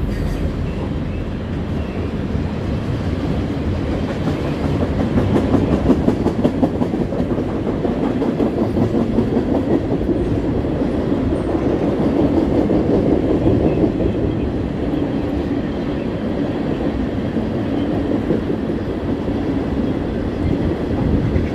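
Freight train tank cars rolling past steadily, steel wheels rumbling on the rails with a constant fine clatter.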